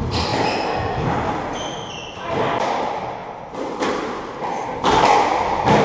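Squash rally: several sharp hits of the ball off racquets and walls, ringing in the enclosed court, with short high squeaks of shoes on the wooden floor in the first couple of seconds.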